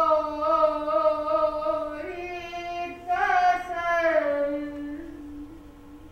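A woman singing long, held notes, with a brief dip and a stronger note at about three seconds, then fading out. A single steady tone holds on underneath as her voice dies away.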